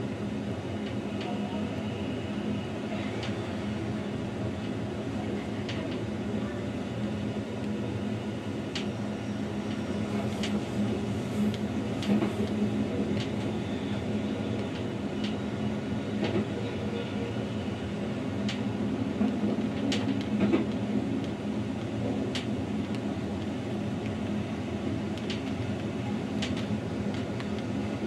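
Narrow-gauge Rhaetian Railway electric train running along the track, a steady rumble of wheels on rail with a low hum underneath. Sharp clicks now and then as the wheels pass rail joints.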